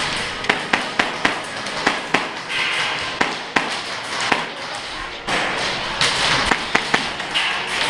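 Airsoft guns firing during a close-quarters game: sharp single cracks and quick pairs at irregular intervals, about a dozen in all, bunched in the first half and again near the end.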